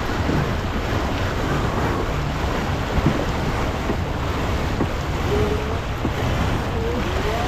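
Steady wind buffeting the microphone, with water rushing along the hull of a sailing yacht under way. A couple of sharp knocks sound on deck about three and five seconds in.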